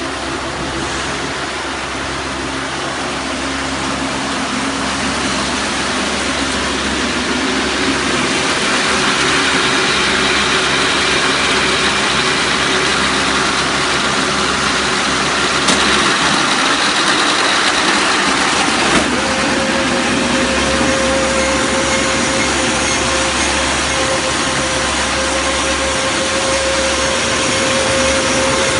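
Silage baler running on a test run, a steady machine noise that grows louder over the first several seconds. Two sharp clicks come a few seconds apart past the middle, and a steady whine holds after the second.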